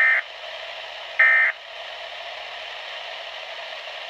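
Two short, shrill digital data bursts about a second and a quarter apart over steady radio hiss on a weather radio broadcast. They are the SAME end-of-message code that closes an alert.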